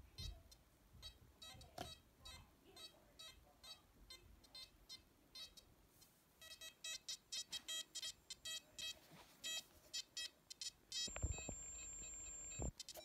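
XP Deus II metal detector giving short repeated beeps as a hot hematite stone is passed over its coil. The beeps are sparse at first, then come faster and louder at about four a second from roughly six seconds in. Near the end a steady high tone sounds for about a second and a half, along with low handling knocks.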